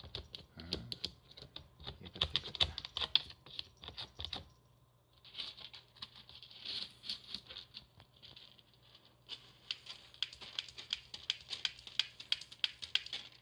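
A cat digging and scratching in pellet cat litter in a plastic litter box. The pellets rattle and click in quick runs, in three bouts with short lulls about four and a half seconds and nine seconds in. The last bout is the fastest.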